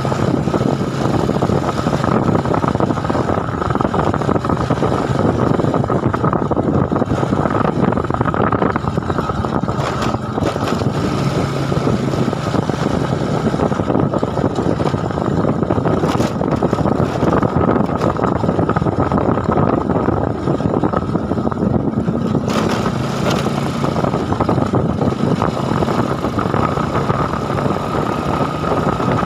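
A vehicle engine running steadily, with a constant high whine over a dense rushing noise.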